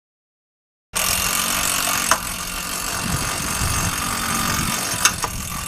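Dead silence for about a second, then steady outdoor street noise from vehicles and machinery, with two sharp clicks about two and five seconds in.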